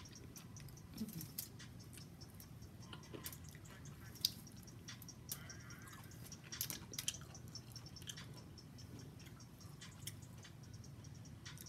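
Faint wet eating sounds: a person chewing and smacking while eating a mussel from its shell, with scattered small clicks and one sharp click about four seconds in.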